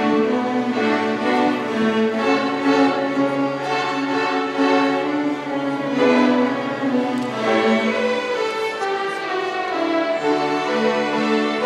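A fifth-grade student string orchestra of violins, violas and cellos playing a piece together, with bowed notes held and changing every second or so.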